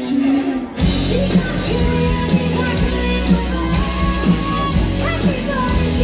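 Live rock band playing: acoustic and electric guitars, bass and drums, with a woman singing. The band drops out for under a second near the start, then comes back in full with a steady drum beat.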